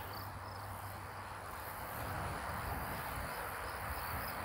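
Steady high-pitched insect song over the low, even rumble of a bicycle rolling along a trail.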